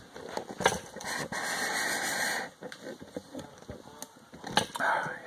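Handling noise from the camera being picked up and moved in close: scattered knocks and clicks, with a longer scraping rush about a second in and a shorter one near the end.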